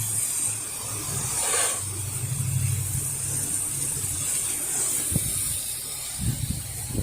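Pressure washer running with a steady low engine hum while water hisses from the spray wand onto a house. A few low bumps come near the end.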